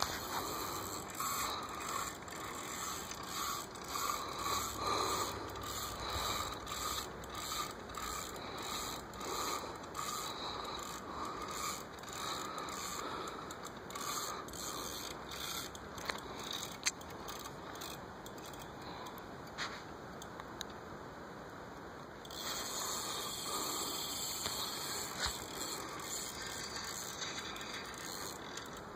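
Fishing reel ratchet clicking and scraping irregularly while a hooked sturgeon is played on the rod, with a short lull about two-thirds of the way through.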